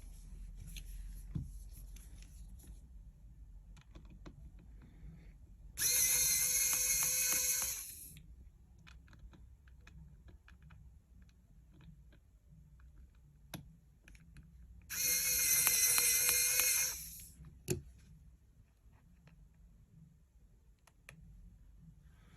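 Small electric precision screwdriver whining in two runs of about two seconds each, backing out the iPhone 7 Plus's two bottom pentalobe screws, with light clicks of handling in between.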